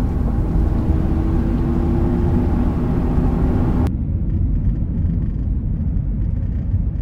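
Car driving on a forest road: a steady low engine and tyre rumble, with a hiss and a faint engine hum over it. About four seconds in the hiss cuts off suddenly, leaving only the muffled low rumble heard inside the cabin.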